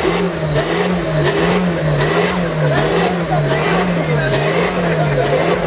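A Volkswagen saloon's diesel engine held at high revs for an exhaust sound-level measurement, its speed rising and falling about twice a second while it blows thick black smoke.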